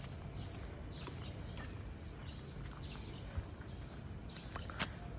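Small birds chirping: short, high, falling calls repeated about twice a second, over a steady low rumble of outdoor background noise. A sharp tick near the end.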